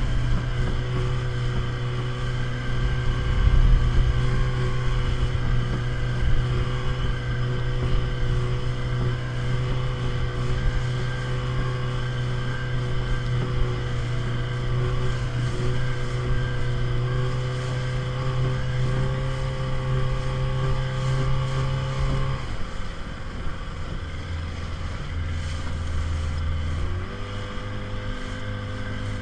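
Outboard motor of a small Rhino speedboat running at a steady cruising speed. It drops to a lower engine note about twenty-two seconds in, then picks up to a new steady speed near the end, over rough low rumbling noise.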